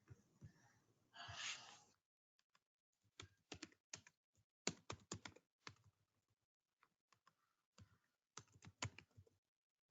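Faint typing on a computer keyboard: irregular runs of keystroke clicks, after a brief hiss about a second in.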